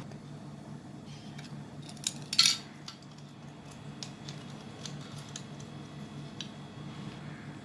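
Screwdriver and plastic hair dryer casing being handled as the two housing screws are taken out and the shell opened: scattered small clicks and taps, with one louder clatter about two and a half seconds in.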